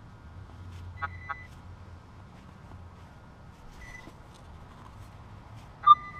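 Electronic beeps from metal-detecting gear: a short pulsing tone about a second in, a brief tone about four seconds in, and a loud sharp beep near the end.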